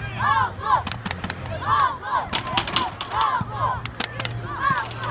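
Young spectators shouting short, high calls in quick bursts, with sharp cracks scattered among them.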